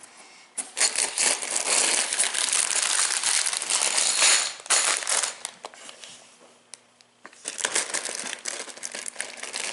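A LEGO set's packaging being opened by hand: cardboard and plastic crinkling and rustling with small clicks. It comes in two spells with a quieter gap in the middle.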